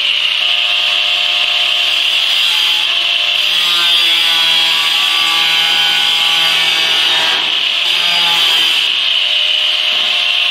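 Angle grinder with a cutting disc slicing through sheet-metal ductwork, running under load with a steady high whine that wavers slightly as the cut goes on.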